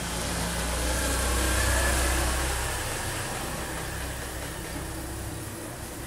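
A motor scooter passing on the street. Its engine hum grows louder for about two seconds, then fades away.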